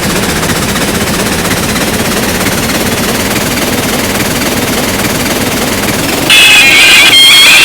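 Train running with a dense, rapid rattle; about six seconds in, a loud horn sounds several tones at once and is held.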